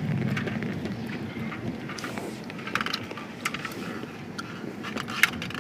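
Car cabin road noise: a steady low rumble of a car driving, with scattered light clicks and knocks.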